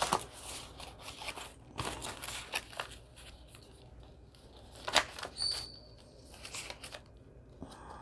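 Soft rustling and light taps of vintage paper being handled and slid into a paper pocket of a handmade junk journal, with one sharper paper click about five seconds in.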